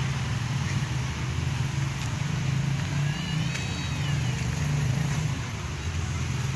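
ATV engine running steadily with a low hum. A brief high-pitched sound rises and falls about three seconds in.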